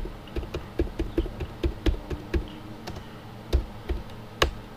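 Computer keyboard typing: a quick, irregular run of key clicks, with one louder keystroke near the end.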